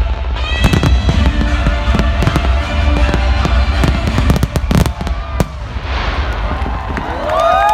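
Finale of a fireworks display: a rapid volley of firework bangs over loud music with a heavy bass, the bangs stopping about five and a half seconds in. A crowd starts cheering near the end.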